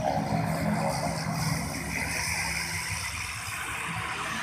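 Cessna Super Sky Caravan's turboprop engine and propeller running at taxi power, a steady hum with a propeller tone, growing a little fainter as the plane taxis away.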